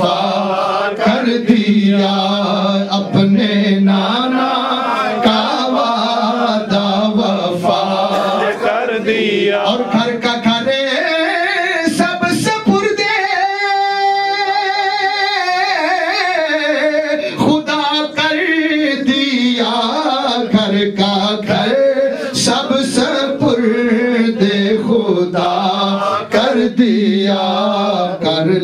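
A man sings an Urdu devotional salam without instruments, into a microphone over a PA, in a melismatic line with long held, wavering notes; the longest comes about halfway through.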